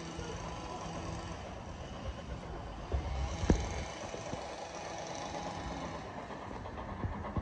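Steady low vehicle rumble of railway station ambience, with one sharp click about three and a half seconds in.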